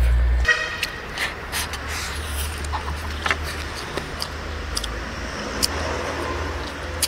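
Eating sounds: scattered sharp clicks of chopsticks and a bowl, with mouth sounds, over a steady low rumble. A brief pitched tone sounds about half a second in.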